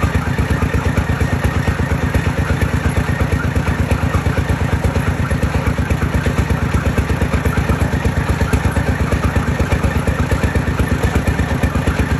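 Engine of a street oil-press machine running steadily, with a fast, even thumping of several beats a second.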